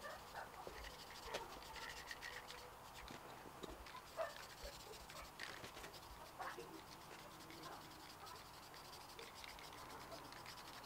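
Faint background with scattered soft clicks and taps and a few brief high chirps.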